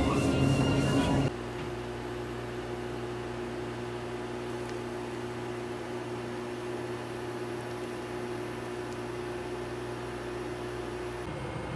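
Background music cuts off about a second in, giving way to the steady electrical hum of an induction cooker heating a pot of water, with its cooling fan running.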